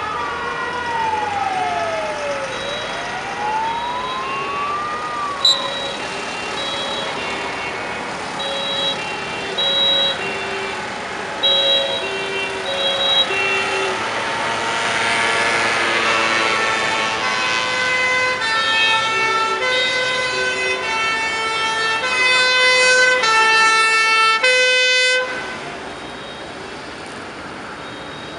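Fire truck sirens sounding as the trucks pass. First a wailing siren sweeps slowly up and down, twice. Then two-tone horns alternate between a high and a low note, growing louder with several sounding over one another, until they cut off suddenly about 25 seconds in, leaving the trucks' engines running.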